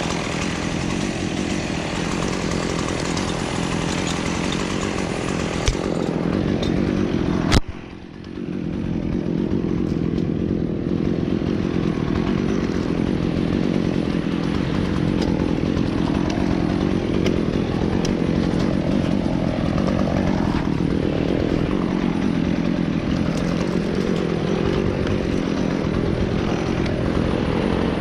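Chainsaw running steadily. Partway through there is a sharp click, the sound dips for a moment, and then it picks back up and keeps running.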